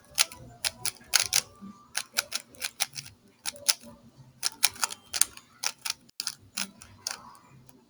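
3x3 Rubik's cube being turned fast by hand: its layers clicking and clacking in a quick, uneven run of several turns a second.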